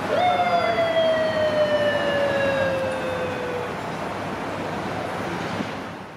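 Japanese police motorcycle siren sounding one long tone that glides slowly downward and dies away about three and a half seconds in, over steady city traffic noise.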